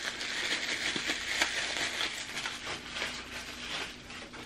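Bubble wrap around a camera lens crinkling and crackling as it is handled and unwrapped, with many small sharp clicks, easing off toward the end.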